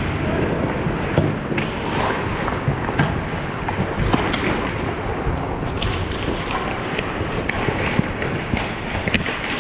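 Ice hockey play close to the net: skate blades scraping and cutting on the ice, with many short sharp clacks of sticks and puck.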